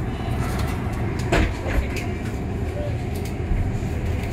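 Inside an electric double-decker bus (BYD/ADL Enviro400City) on the move: a steady low rumble of tyres and running gear, with a few short knocks and rattles from the bodywork, the clearest about a second and a half in.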